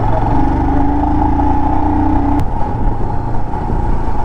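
Royal Enfield Himalayan's single-cylinder engine running under way on an uphill road, a steady low rumble with wind noise over it. A pitched whine rises slightly over the first couple of seconds, and there is one sharp click near the middle.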